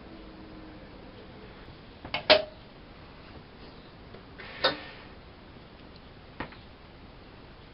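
Miele Softtronic W 204 washing machine: a few sharp clicks and knocks, a close pair about two seconds in, another about halfway, and a fainter one near the end, over a low steady background.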